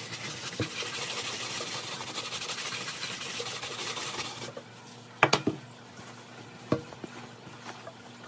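Medium-texture brush scrubbing foamy cleaning solution into a sneaker's leather upper: a steady bristly hiss of quick strokes that stops about four and a half seconds in. After it come a few sharp knocks, two close together and one more a second and a half later.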